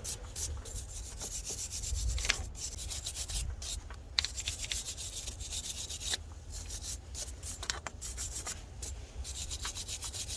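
A brush scrubbing a car battery's cable terminal in repeated quick strokes with brief pauses, scraping off rust and corrosion.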